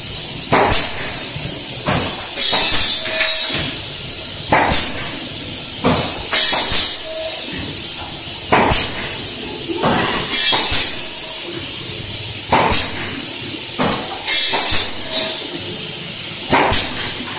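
Automatic pallet foot-block nailing machine cycling. Its nailers fire a cluster of sharp bangs about every two seconds over a steady high hiss.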